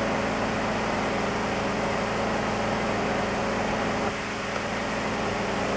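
Portable 12 V car air compressor (tyre inflator) running with a steady, even-pitched buzzing hum while inflating a tyre. It gets slightly quieter about four seconds in.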